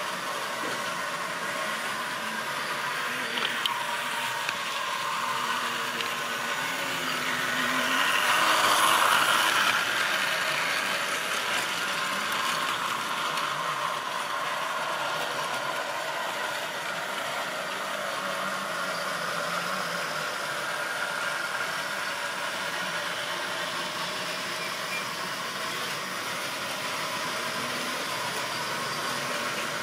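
Model railway train running on its track: a steady whirr and rattle of the locomotive and its string of goods wagons rolling over the rails. It swells louder around nine seconds in as the train passes closest.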